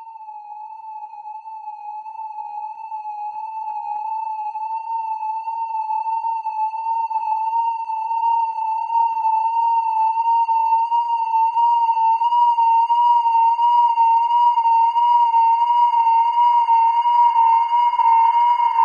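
A single eerie electronic tone with an even wobble in pitch, swelling steadily louder and creeping slightly higher as it goes.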